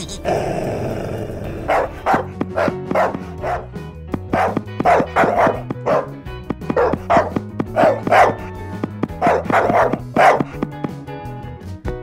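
A dog barking over and over in quick runs of barks, with background music underneath.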